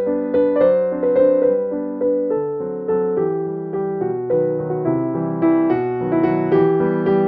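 Background piano music: a gentle melody of notes struck at an even pace, each ringing and fading.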